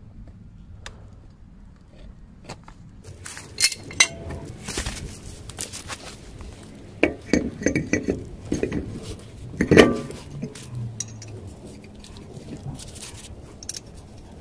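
Metal hand tools and parts clinking and knocking against each other: a few faint clicks at first, then a busy run of sharp clinks from about three seconds in, the loudest knock near ten seconds.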